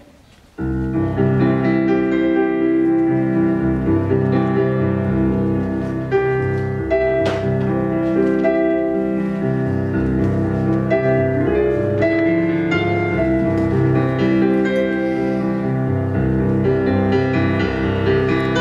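Solo piano ballet-class accompaniment, starting just over half a second in and then playing steadily.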